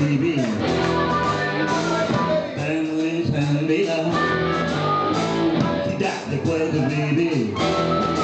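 Blues-rock boogie played by a band, an instrumental stretch with guitar lines sliding in pitch over a steady rhythm section.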